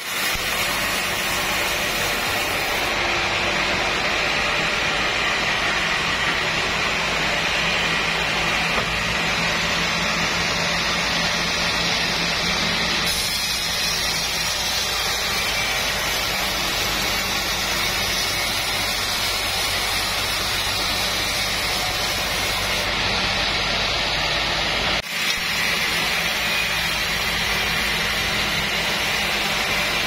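Vertical band sawmill running and sawing teak logs: a steady motor hum under a constant hiss from the band blade. The hiss shifts in tone a few times, and the sound drops out for a moment about 25 seconds in.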